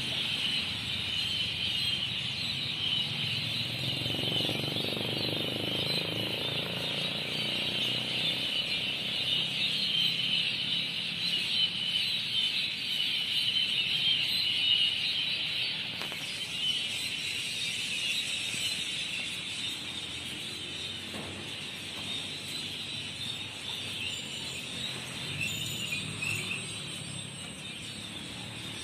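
Outdoor riverside ambience: a steady high-pitched chorus of chirping or chirring, weaker in the second half, over a low background rumble.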